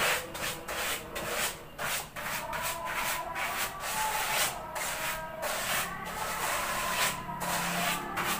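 Paintbrush bristles sweeping across a large loudspeaker cone in quick repeated scratchy strokes, dusting the cone clean before a coating is brushed on.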